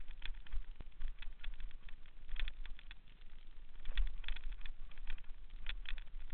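Mountain bike descending a loose, rocky dirt trail: irregular clicks and clattering of stones and the bike rattling over the rough ground, some in quick clusters, over a low wind rumble on the camera microphone.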